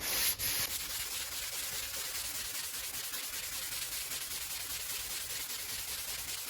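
Sandpaper on a sanding pad rubbing on wood by hand in quick, regular back-and-forth strokes, a little louder in the first second and then steady; the paper is loading up with resin.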